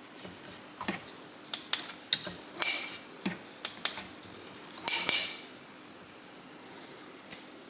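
Ridgid cordless magnetic task light being handled: small plastic clicks and knocks as it is folded and its magnetic base is pressed to metal. Two short, louder scraping rattles come about two and a half and five seconds in.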